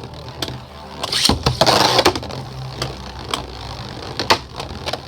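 Two Beyblades, a custom 3D-printed Celestial Aries and a Lightning L-Drago, spinning against each other in a plastic stadium: a steady whir broken by sharp clacks as they collide, with a short grinding clash about a second and a half in.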